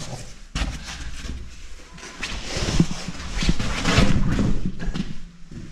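Close handling noise on the camera: rustling, rubbing and knocking right at the microphone, densest and loudest through the middle, as it is carried through a narrow cave tunnel.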